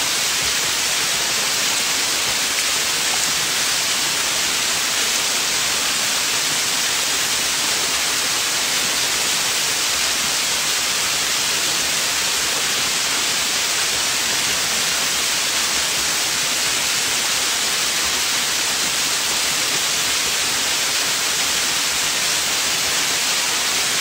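Waterfall pouring over rock right beside the microphone: a steady, loud hissing rush of falling water.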